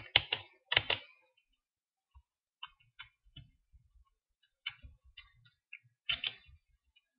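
Computer keyboard keystrokes, single key presses rather than steady typing: a few louder clicks in the first second, then scattered fainter ones about every half second as lines of code are re-indented.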